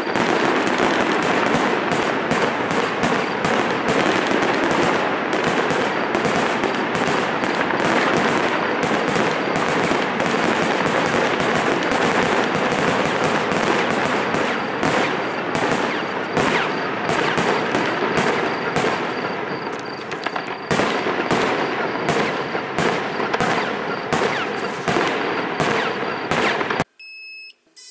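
Fireworks barrage: a dense, rattling stream of rapid bangs and crackles that starts suddenly, thins into more separate reports after about twenty seconds, and cuts off near the end.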